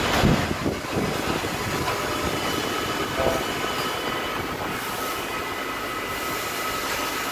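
DC spot welding machine at work: a steady mechanical din with a faint whine, and clunks near the start, about a second in and about three seconds in.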